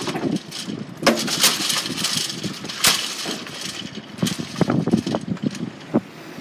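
Irregular gusts of wind buffeting the microphone, over the low running of road traffic engines.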